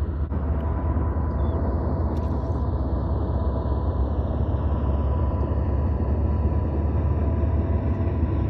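Boat motor running steadily: a low rumble with a faint, even whine over it.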